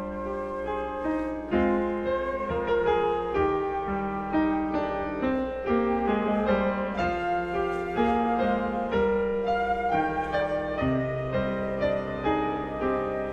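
Grand piano playing a flowing passage of chords and melody, each note struck and left to ring.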